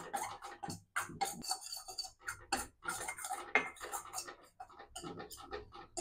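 Steel ladle scraping and clinking against a stainless steel kadai, stirring wheat flour as it roasts. It makes a quick, irregular run of scrapes and taps.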